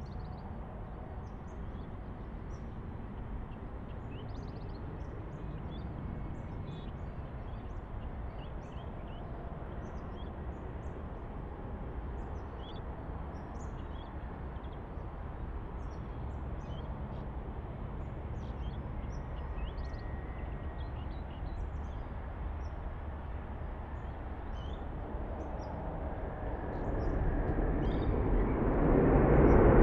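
Boeing 787-10 airliner landing: a steady low rumble with birds chirping over it, then, a few seconds before the end, the jet engines swelling into a loud roar as the plane touches down and applies reverse thrust.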